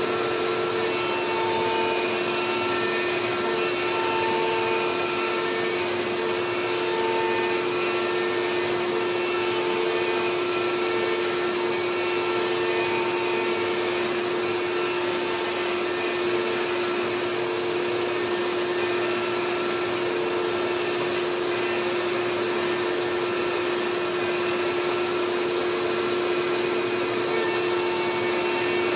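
CNC router spindle running steadily while milling a carbon fibre sheet: a constant high whine over a steady rushing noise, with a second tone that comes and goes.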